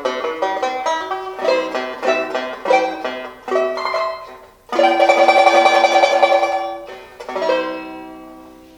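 1928 Weymann No.7 tenor banjo played with a pick: a run of single notes and chords, then about two seconds of fast tremolo strumming on one chord, ending on a chord left to ring and fade.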